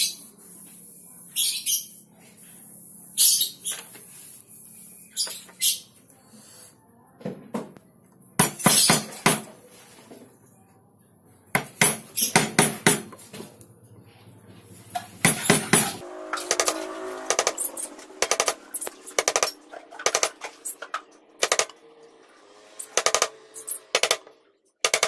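Small hand chisel cutting and scraping wood in short, irregular strokes, each a sharp click or scratch.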